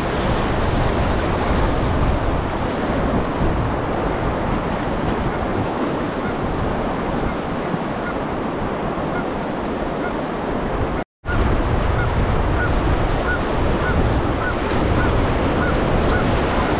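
Fast, high-water river current rushing and splashing around a kayak, a steady churning wash, broken by a split-second gap of silence about eleven seconds in.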